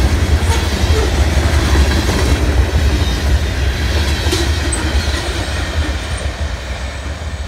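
Covered hopper cars of a freight train rolling past with a steady low rumble and a few sharp clicks from the wheels. The sound fades over the last couple of seconds as the end of the train goes by.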